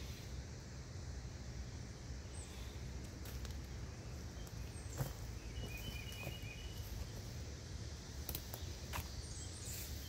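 Outdoor garden ambience: a steady low rumble, a few faint clicks, and a brief high chirping about six seconds in.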